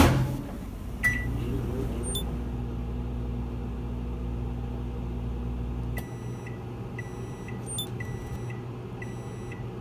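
Microwave oven: a single keypad beep about a second in, then the oven running with a steady low hum. About six seconds in the hum drops, and the end-of-cycle signal beeps four times, about once a second.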